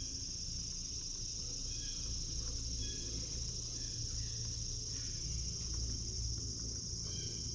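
Steady high-pitched chirring of a cricket chorus, with a low rumble underneath and a few faint short chirps.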